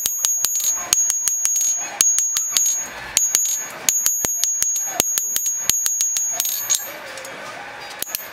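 Hand hammer striking a red-hot San Mai steel knife blade on an anvil: quick runs of blows, about four or five a second with short pauses between runs, each with a high metallic ring. The hammering stops near the end.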